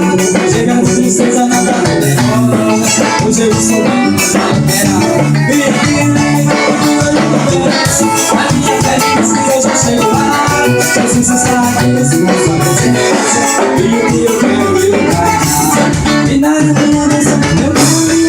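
Live band playing an instrumental passage of a gospel song, with a steady beat and rattling, shaker-like percussion over bass and melody.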